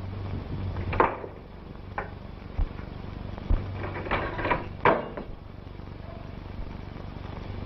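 A few scattered sharp knocks and clicks, like wood or metal being handled. The loudest comes about a second in and another near five seconds in, with a quick cluster just before it. They sit over the steady hum and hiss of an old optical film soundtrack.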